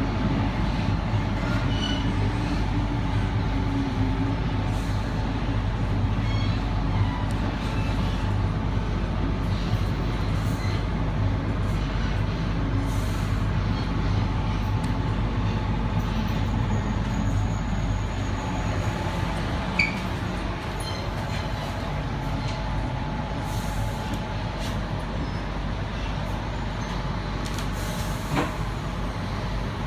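Electric suburban train running, heard from inside the carriage: a steady low rumble and hum of wheels and motors, with a faint steady whine, a few light clicks, and a little quieter in the last third.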